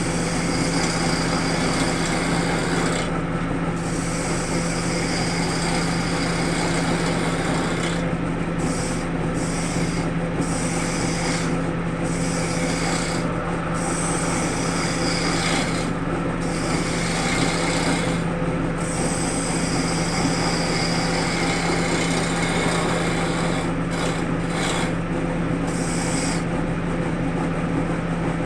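Wood lathe running with a steady low motor hum, while a tool or abrasive works against the spinning wood and makes a continuous rough, scraping noise. The upper part of the noise breaks off briefly every few seconds.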